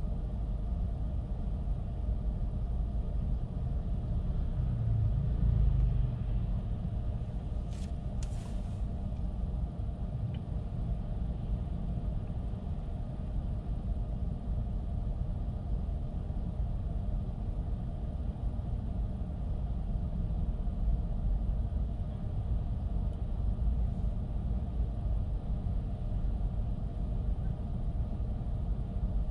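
Steady low rumble of a Chevrolet Bolt electric car driving on wet city streets in light rain, mostly tyre and road noise. The rumble swells louder about five seconds in, and a short sharp clatter comes about eight seconds in.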